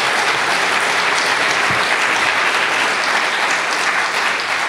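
A room full of people applauding, a steady, even clapping throughout.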